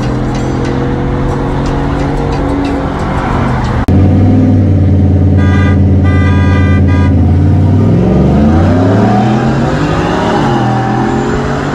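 Car engines droning at steady cruising speed, then a car horn sounds in a run of short honks, the usual start signal for a roll race. After the honks the engines of a 5.0-litre Lightning truck with a 10-speed automatic and a Corvette rev up together under hard acceleration, climbing in pitch, dropping at a gear change and climbing again.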